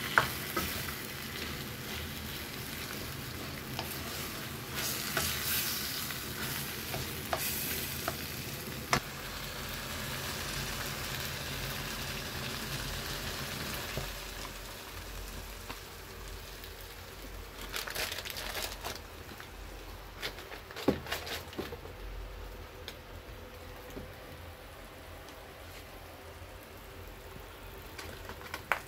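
Raw chicken pieces frying and sizzling with onion, garlic and ginger in a stainless steel wok, with a few sharp clicks of a utensil against the pan. The sizzle is steady, then grows softer from about halfway.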